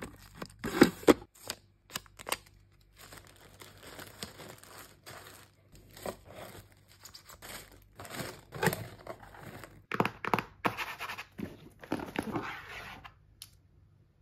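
Stickers being peeled from their backing and pink tissue paper and a cardboard gift box being handled during order packing: a string of short crinkles, peels and scrapes that die away shortly before the end.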